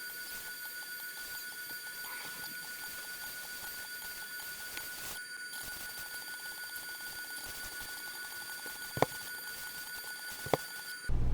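CNC router running, a steady high-pitched whine over a faint hiss, with two sharp clicks near the end.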